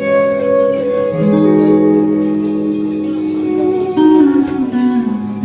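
Live band music led by guitar: held, ringing notes, with a line stepping down in pitch over the last second or so.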